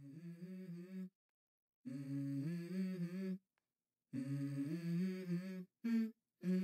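A low voice humming a simple tune in a few short phrases with brief pauses between, stepping between a handful of notes.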